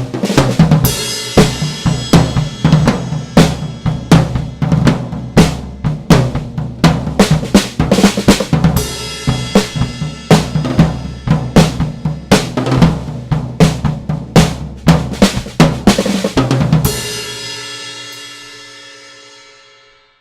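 Pearl Export drum kit, fitted with a new Evans 56 Calftone drumhead, played in a sound test: a busy groove of snare, bass drum and cymbal hits. The playing stops about three seconds before the end and the last hit rings out, fading away.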